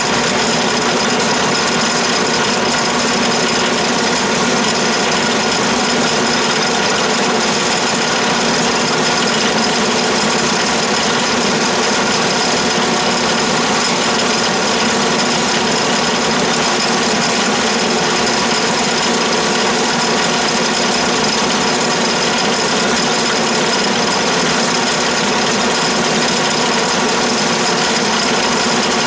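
Atlas lathe running steadily while a Woodruff keyseat cutter in its spindle is fed slowly straight down into the work in a plunge cut. The machine noise is loud and even, with several steady tones, and does not change.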